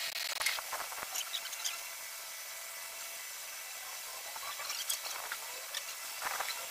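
Hand tools and metal engine parts clinking, knocking and scraping in short scattered bursts, clustered in the first second or two, again about five seconds in, and just before the end.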